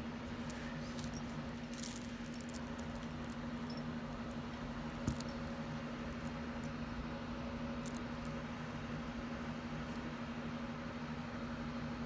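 Small pieces of metal jewelry faintly clinking now and then as they are handled, with a light knock about five seconds in, over a steady low hum.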